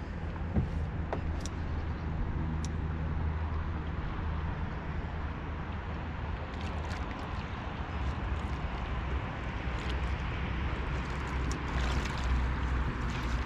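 Steady low hum and water noise around a small fishing boat, with a few light splashes in the second half as a hooked catfish comes up beside the hull.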